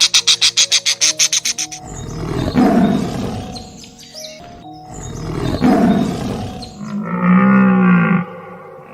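A bird chirping rapidly, about eight calls a second, then two loud roars from a big cat, then a cow mooing once near the end.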